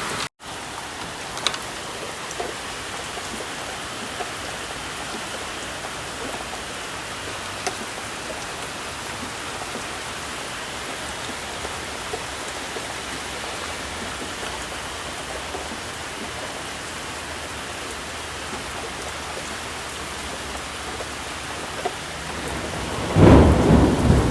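Steady rain falling, with a loud rumble of thunder breaking out near the end.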